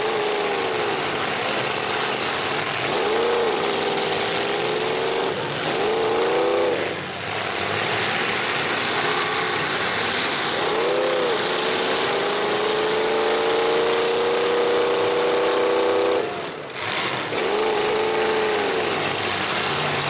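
Demolition derby cars' engines running and revving over and over, their pitch rising and falling as the cars accelerate and back off, over a dense background hiss. The loudness drops briefly twice.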